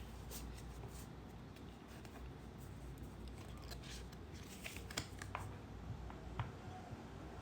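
Pocket-size oracle cards being flipped through by hand: faint handling of card stock with a scattering of light, sharp card clicks, over a low steady hum.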